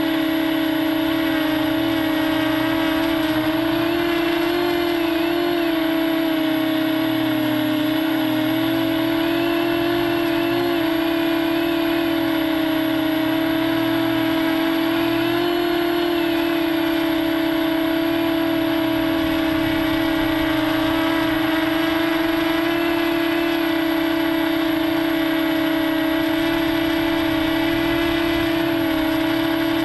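Quadcopter's electric motors and spinning propellers, heard close up from the camera mounted on its frame: a steady, loud, buzzing whine whose pitch wavers slightly up and down with the throttle.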